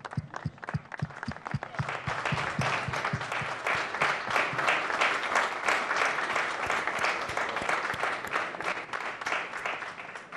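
A crowd applauding: many hands clapping together, building up about a second and a half in and thinning out near the end.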